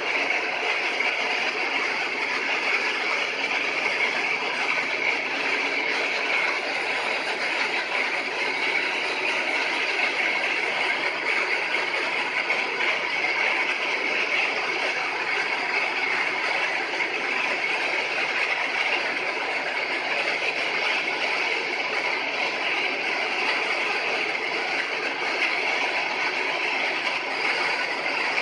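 TM-8000L automatic chicken plucking line running: a steady, even machine noise that does not change.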